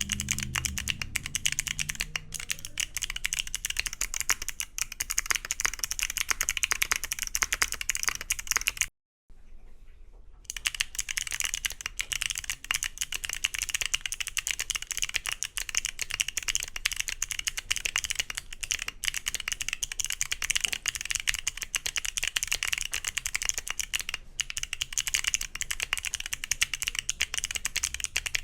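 Continuous fast typing on a mechanical keyboard fitted with Wuque Studio BigLucky clicky switches, each keystroke a sharp, crisp click. The typing breaks off for about a second around nine seconds in, then carries on with the board on a PP plate.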